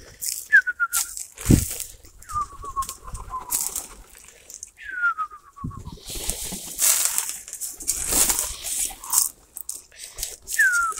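Pigeons moving about in a loft and on the ground: rustling, wing flaps and a few soft thumps. A falling, stuttering squeak repeats four times.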